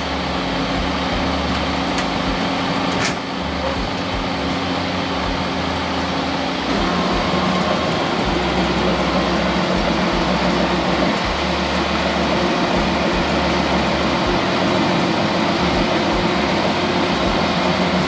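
Milk tanker truck's pump and engine running steadily as milk is sucked out of the dairy vat through the hose into the truck. The hum shifts and the sound gets louder about seven seconds in.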